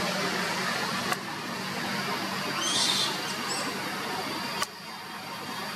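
Outdoor background hiss with a steady low hum, and one brief high-pitched call about three seconds in.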